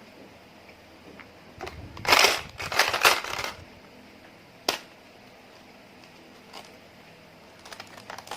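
Slime being squeezed and pressed by hand, giving a burst of crackly squelching from about two seconds in to three and a half seconds, a single sharp click near five seconds, and a few small crackles near the end.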